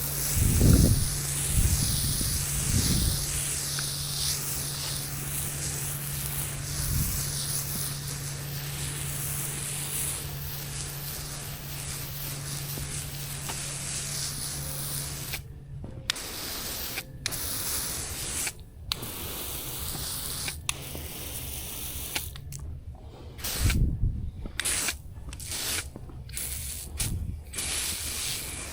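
Soft-wash sprayer spraying a sodium hypochlorite cleaning mix onto concrete: a steady hiss with a low hum under it for about the first half. After that the spray cuts off and on several times in quick gaps.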